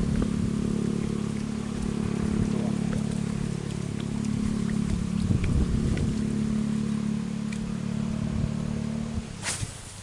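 A steady, even-pitched motor hum that stops about nine seconds in, followed by a sharp click.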